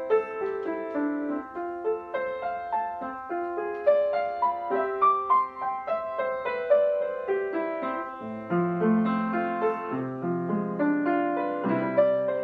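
Yamaha upright piano being played: a steady stream of quick melody notes, with low bass notes joining about eight seconds in.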